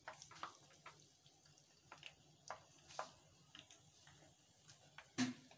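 Hot oil crackling and popping faintly around bofrot dough frying in a pan, in scattered short pops, with one louder knock about five seconds in.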